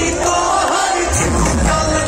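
Loud song with singing playing, with the voices of a crowd of dancers mixed in.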